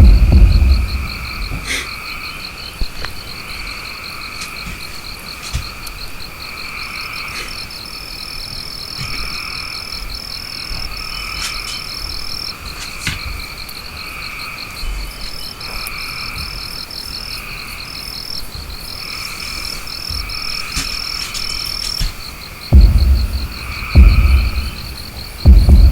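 Frogs croaking in a repeated chorus over a steady, fast insect trill, with an intermittent high whistle-like call through the middle. Two loud low booms near the end.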